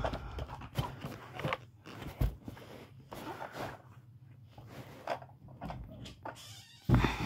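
Scattered clicks, rustles and soft knocks from a phone camera being handled and moved along carpet, with a louder low thump near the end.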